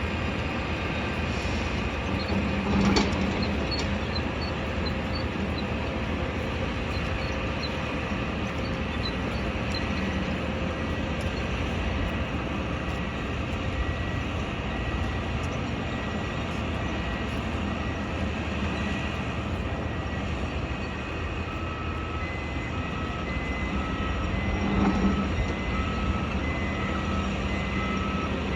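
Construction-site din: a steady rumble of machinery and traffic, with a knock about three seconds in and another near the end. In the last several seconds a construction vehicle's reversing alarm beeps repeatedly.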